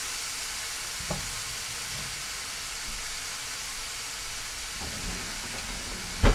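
Seasoned oxtail searing in a hot pot with a little oil: a steady sizzle. A sharp clack sounds near the end.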